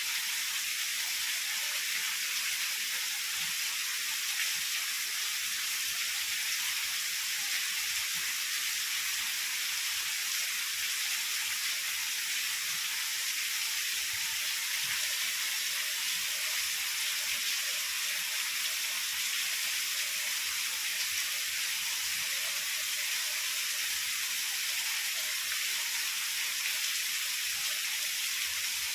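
Heavy rain falling, a steady, even hiss with no thunder.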